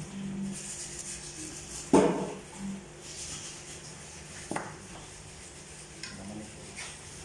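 Metal pot and knives being handled: a sharp clattering knock about two seconds in, a smaller knock about four and a half seconds in, and light scraping between.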